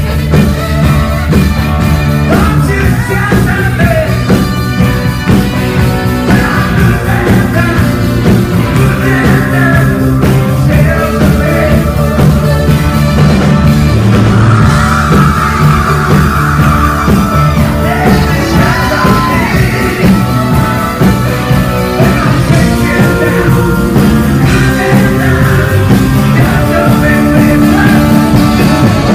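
A live rock band playing a song: lead vocals over electric bass, drum kit, congas, keyboards and saxophone, loud and continuous.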